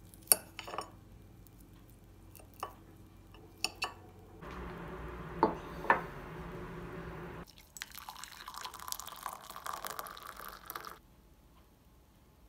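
A metal fork clinking a few times on a ceramic plate, then several seconds of small tabletop handling sounds: a steady watery hiss, then a crackly rustle.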